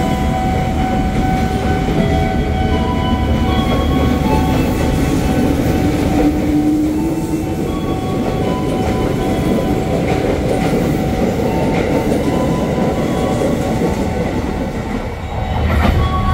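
Ex-JR 205 series KRL electric commuter train running out of the station, its motor hum rising in pitch as it gathers speed. Near the end the sound swells again as another commuter train approaches.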